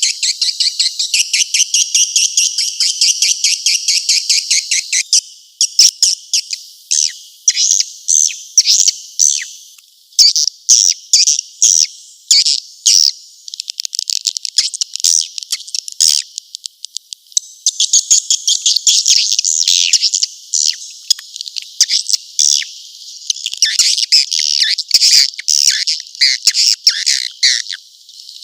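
Recorded swiftlet calls used as a swiftlet-house lure sound: high, rapid chirping and twittering. A fast, even trill lasts about the first five seconds, then gives way to irregular runs of chirps with short gaps.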